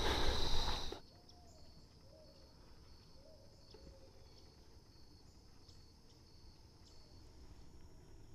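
About a second of loud rustling and handling noise that cuts off, then a quiet outdoor background of insects chirping in a steady high trill with evenly repeated pulses, and a few faint short calls in the first few seconds.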